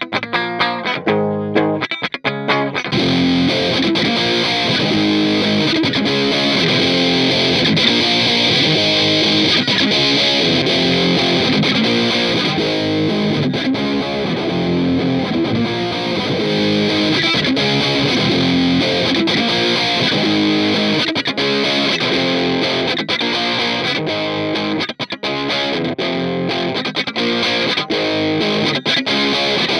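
Electric guitar played through a Boss DS-2 Turbo Distortion pedal. It opens with short, choppy chords, then about three seconds in moves into continuous, sustained distorted playing.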